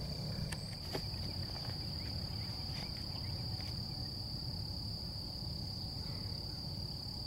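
Insects droning in a steady, high-pitched trill that holds without a break, over a low background rumble.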